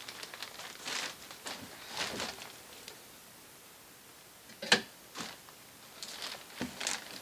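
Handling noises as a person climbs off a motorcycle frame and moves it: rustling and shuffling, a sharp clunk about four and a half seconds in, and a few lighter knocks near the end.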